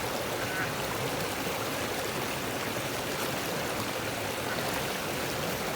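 Small mountain river flowing, a steady rush of water over rocks.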